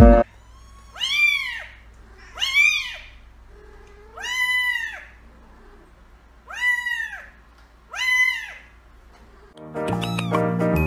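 A kitten meowing five times. Each meow is a high call that rises and falls in pitch, with pauses of a second or more between them. Background music comes back in near the end.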